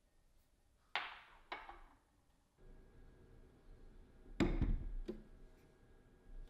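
Two sharp clinks about a second in, then a heavy thunk about four seconds in as the plastic Vitamix blender jar is set down and handled, followed by a smaller knock.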